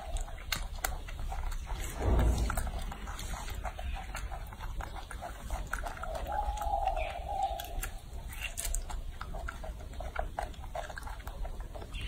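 Baby macaque eating a peeled orange: wet chewing and lip-smacking clicks, with one drawn-out coo-like call about six seconds in. A dull thump about two seconds in is the loudest sound.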